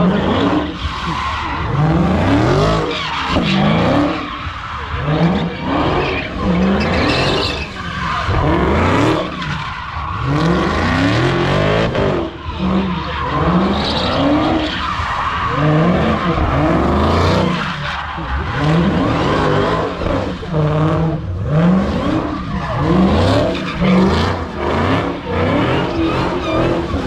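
A car doing donuts: its engine revs climb and fall over and over, about once a second, while the rear tyres skid and spin on the pavement.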